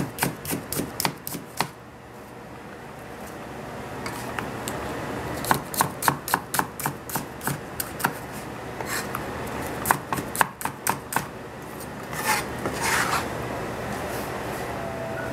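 Chinese cleaver slicing a red bell pepper into strips on a plastic cutting board: quick runs of knocks, about four or five a second, in several bursts. Near the end come two scraping sweeps as the strips are cleared off the board.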